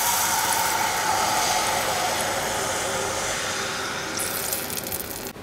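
Strained tamarind juice poured into hot oil in a pan, sizzling with a steady hiss that eases slowly and cuts off suddenly near the end.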